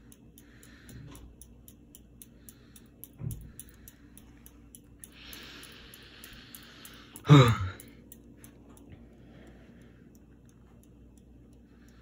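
Hampton Bay Carousel ceiling fan running with a low motor hum and a fast, regular light ticking that grows sparser, as the fan spins down. A breathy hiss comes about five seconds in, and a short loud sound with a falling pitch a little after seven seconds.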